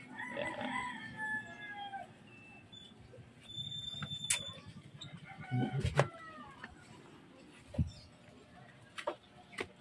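A rooster crowing, its call falling in pitch over the first two seconds, with a shorter second call about six seconds in.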